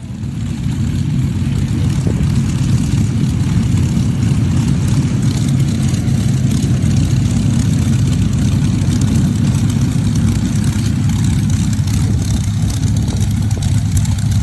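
Jet aircraft engines running steadily, heard as a loud, even low rumble with a fainter hiss above it. It sets in abruptly and swells over the first second.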